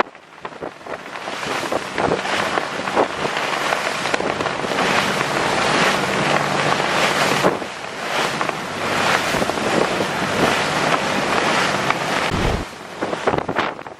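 Passenger ferry's engine humming steadily under wind buffeting the microphone and the rush of sea water; the hum drops away near the end.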